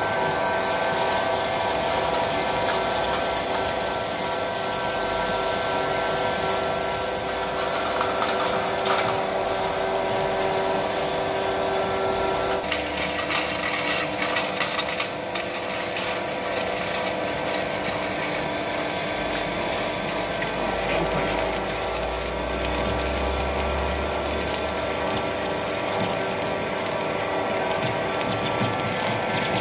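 Heavy lathe taking a roughing cut in solid steel plate: the spindle and gearbox run with a steady whine, and the tool peels off a thick chip that crackles and clatters as it breaks. About halfway, one of the whining tones stops and the clicking turns sharper for a few seconds.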